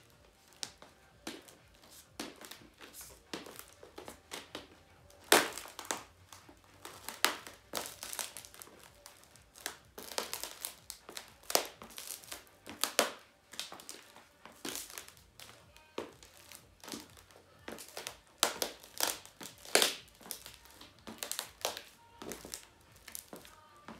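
Laptop's shattered screen panel being crushed under high-heeled shoes: irregular crackling and sharp cracks as the broken panel gives under shifting weight, the loudest cracks about five seconds in and again near twenty seconds.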